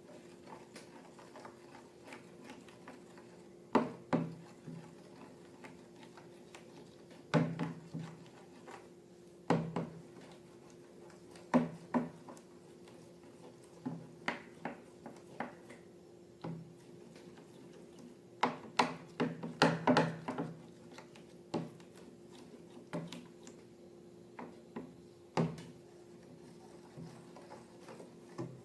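Irregular sharp clicks and taps of small objects being handled on a hard surface, clustered in quick runs about two-thirds of the way in, over a faint steady hum.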